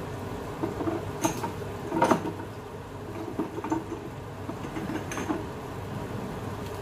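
Minced meat frying in a non-stick pan with a steady sizzle, broken by a few sharp clinks and knocks of kitchenware, the loudest about two seconds in.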